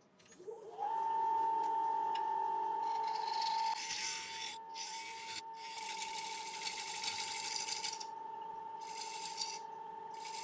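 Wood lathe starting up, its motor whine rising over the first second and then holding steady. A shear scraper then cuts the spinning dry yew bowl in several hissing passes with short breaks between them.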